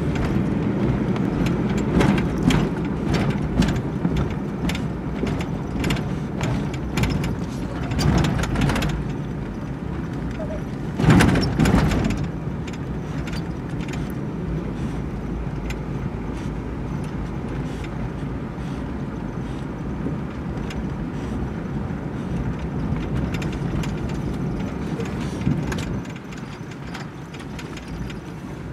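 A slowly moving vehicle heard from inside its cabin: steady engine and road noise, with scattered small knocks and rattles and a louder rush about eleven seconds in.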